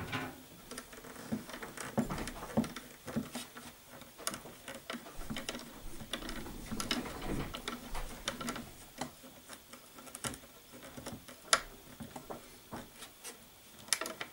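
Metal tuning pegs being screwed by hand into the wooden body of a homemade gusli with a screwdriver: a run of irregular small clicks and scraping as the screwdriver turns and the pegs thread into the wood.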